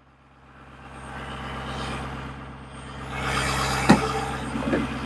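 Motor vehicle engine running steadily with a low hum, fading in from silence and growing louder about three seconds in, with a faint tick near the end.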